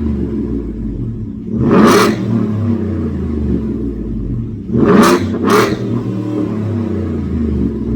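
2021 Ford F-150's 5.0 Coyote V8 with a Borla cat-back exhaust idling and being revved with quick throttle blips: one about two seconds in, then two in quick succession around the five-second mark.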